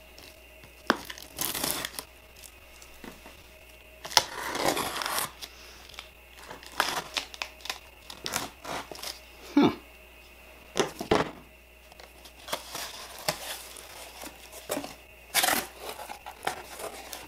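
Packing tape being peeled and ripped off a cardboard shipping box, then slit with a utility knife and the cardboard flaps pulled open: a string of irregular short ripping and scraping noises.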